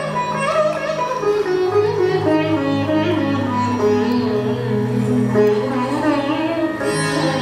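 Odissi dance accompaniment music in the Indian classical style: a melodic line that glides and bends in pitch over long, steady low notes.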